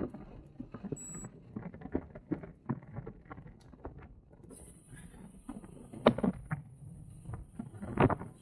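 Road bike rattling and knocking over a bumpy road surface on a descent: irregular clicks and knocks, with two louder jolts about six and eight seconds in.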